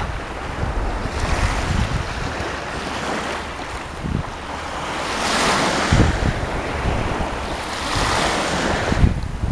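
Black Sea waves washing onto the shore in surges, a big one about halfway through and another near the end, with wind gusting on the microphone.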